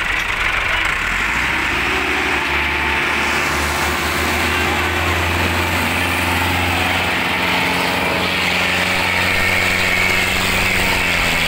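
Diesel farm tractor engines running hard under heavy load, pulling against each other on a chain in a tractor tug-of-war. A steady engine note settles in a couple of seconds in and sags a little in pitch near the end as the engine is pulled down.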